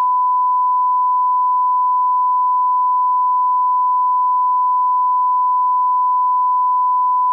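Steady 1 kHz reference test tone, a single unbroken pitch: the line-up tone that goes with colour bars, used to set audio levels.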